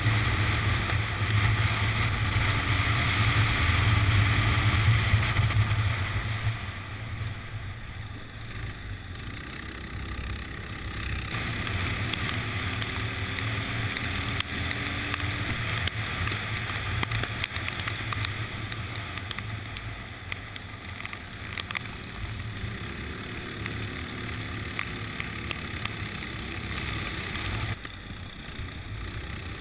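Go-kart engine running on track, heard from a camera mounted on the kart, with its pitch rising and falling slightly through the lap. It is loudest for the first six seconds or so, then drops and runs lower and steadier.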